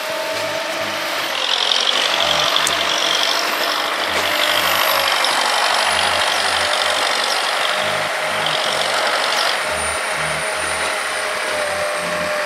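Ponsse forest machine's diesel engine and hydraulics running steadily at close range, with a steady whine over the engine noise.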